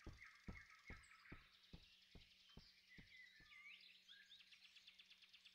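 Faint forest ambience of birds chirping, with a row of soft ticks about two a second that fade out about halfway through.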